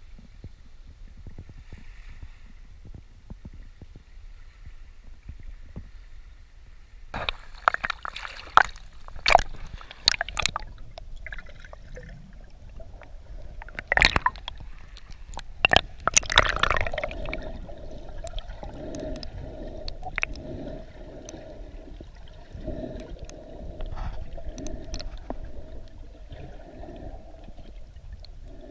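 Small waves washing over the shore rocks, then a run of loud splashes and sharp knocks about a quarter of the way in as the camera goes under the surface. For the last third the sound is muffled underwater: a steady hum with a soft pulse about once a second.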